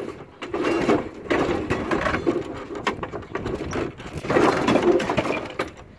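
Rough scraping and clattering from hands-on work on a steel lawn mower deck, in two bouts, the first about two seconds long and the second about a second long, with scattered sharp clicks.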